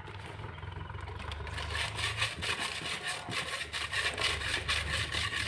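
Hands kneading and churning wet wall putty in a plastic bucket: a rapid, irregular wet squishing and slapping that grows louder from about a second and a half in, over a low steady hum.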